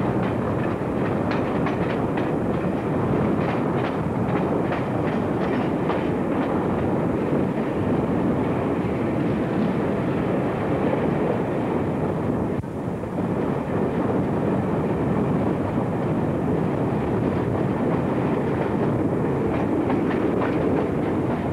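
A train running along the track, heard from on board: a steady rumble with wheels clicking over rail joints, the clicks plainest in the first several seconds and again near the end.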